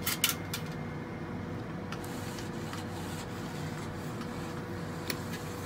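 Steady low machine hum with a faint steady tone, broken by a few soft clicks in the first two seconds and one near the end.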